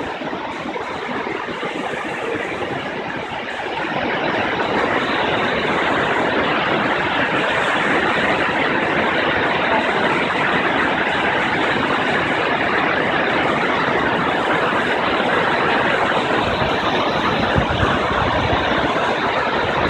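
Steady roar of a waterfall's falling water, a little louder about four seconds in, with low wind rumble on the microphone near the end.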